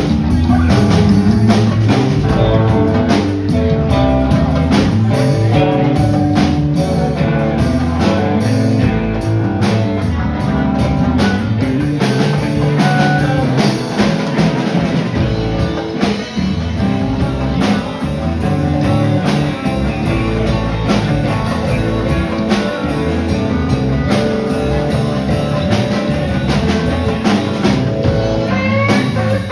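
Live rock band playing: electric guitars over bass guitar and a drum kit.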